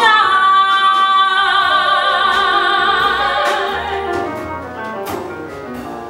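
A soprano holds a long note with a wide vibrato on the word "shine" over grand piano and upright bass accompaniment. The held note fades away about four to five seconds in while the piano and bass carry on quietly.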